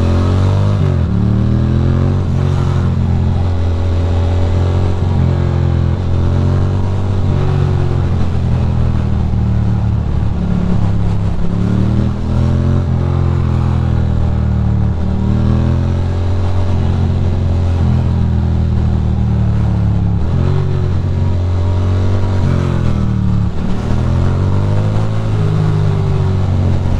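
Ducati Monster's L-twin engine running under way through city traffic. Its pitch rises and falls again and again as the throttle is opened and rolled off.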